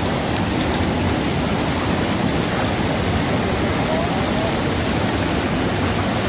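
Steady rushing of water, even and unbroken, with a short faint rising whistle about four seconds in.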